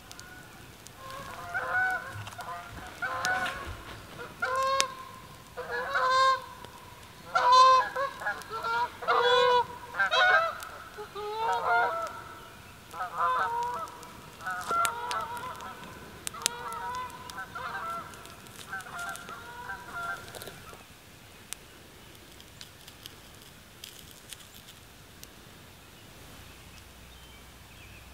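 Geese honking: a long run of short calls, several overlapping at times, that stops about two-thirds of the way through. Faint small clicks and rustles follow.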